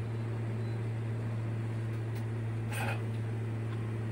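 Steady low electrical hum with a stack of overtones above it, and a short rustle about three seconds in.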